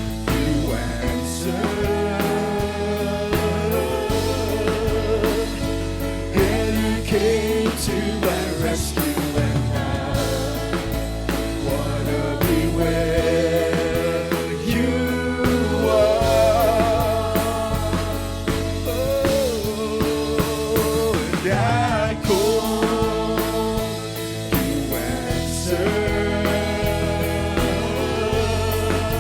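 Contemporary worship band music with a voice singing over a steady bass and keys.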